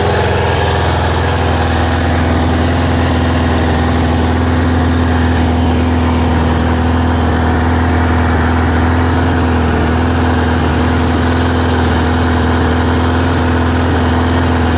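1980 Suzuki GS550L's air-cooled inline-four engine idling steadily while warming up from a cold start.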